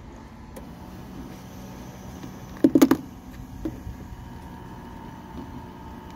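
Lifeclinic blood pressure kiosk's air pump running with a steady hum as it inflates the arm cuff during the test. A quick burst of four loud knocks comes about three seconds in.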